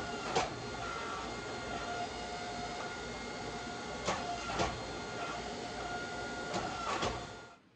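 Hydraulic forging press running steadily under a hot Damascus billet as the ladder dies press the ladder pattern into it, with a faint whine from the pump that comes and goes. Three pairs of sharp knocks, each pair about half a second apart, come as the press cycles near the start, about four seconds in, and near the end.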